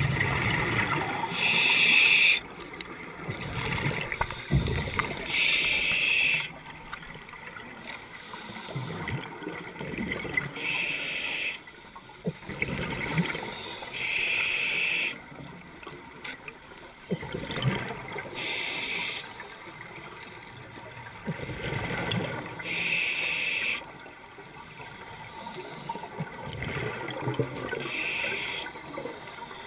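Scuba diver breathing underwater through a regulator: a regular hiss of breaths, about seven at roughly four-second intervals, with gurgling exhaust bubbles between them.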